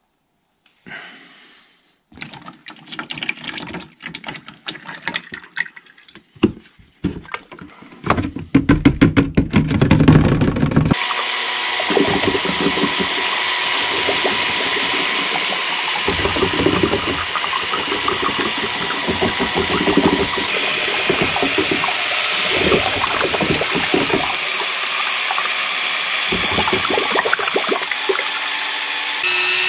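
Crinkling plastic and liquid being poured. About ten seconds in, a cordless drill with a paddle mixer starts up and runs steadily with a constant whine, churning epoxy resin and hardener in a plastic tub.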